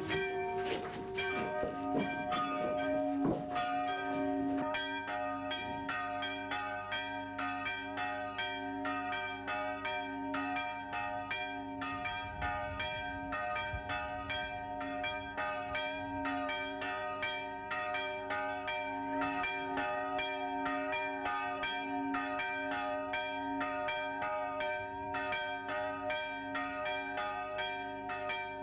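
Several church bells ringing in a quick, steady peal, their strokes overlapping into continuous ringing.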